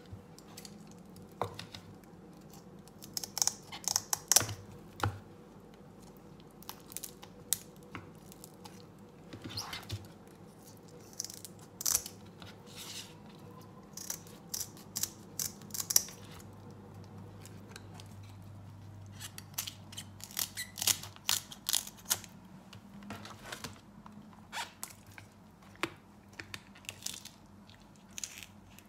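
Kitchen scissors snipping through the fins of a whole hilsa fish: a run of short, sharp, irregular snips and crunches.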